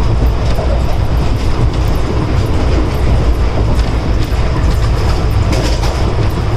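Indian Railways ICF passenger coach running along the track: a steady low rumble with the wheels clicking over rail joints.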